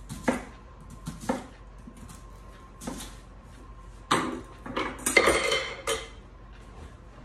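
A chef's knife slicing an onion on a wooden cutting board: single knocks of the blade at about one-second spacing, then a louder run of quick knocks and scraping a little past halfway.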